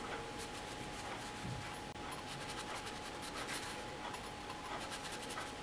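Knife sawing through a pan-cooked flatbread to split it in two: faint, irregular rasping strokes.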